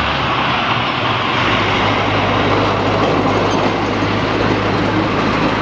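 B-double tanker truck passing along the highway: steady engine and tyre noise with a low hum.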